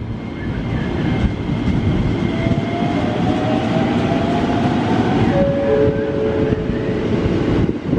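KRL Commuter Line electric commuter train running along the station platform: a steady rumble of wheels on rail with an electric motor whine that rises slightly in pitch from about two seconds in, joined by steadier tones near the end.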